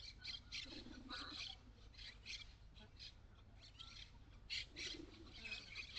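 Birds chirping and calling in quick, irregular bursts, over a steady low rumble of wind.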